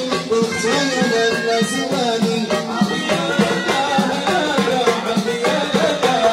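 Aissawa ensemble playing: several men singing over a fast, dense beat of hand-struck frame drums with brass jingles and a drum beaten with sticks.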